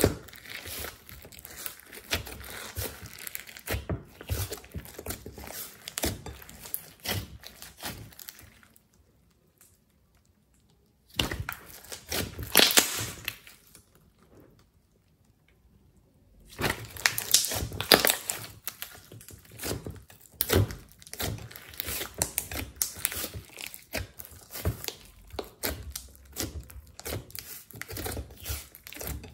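Hands squeezing, poking and stretching thick white slime mixed with coloured clay, giving dense sticky crackles and pops. There are two short silent breaks, about a third of the way in and around the middle.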